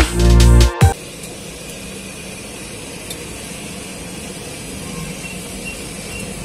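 Background music that cuts off about a second in, then the steady hiss of cooking: a wok of seblak broth steaming over a stove burner.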